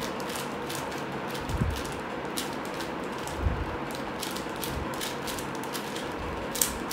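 A 4x4 Rubik's cube being turned by hand through a move sequence: quick, irregular plastic clicks and scrapes as its layers rotate, with two dull knocks from handling, over a steady hiss.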